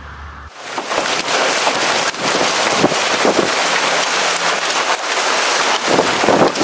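Hail and heavy rain coming down hard: a dense, loud downpour full of sharp hailstone hits. It starts suddenly about half a second in, as a low steady hum cuts out.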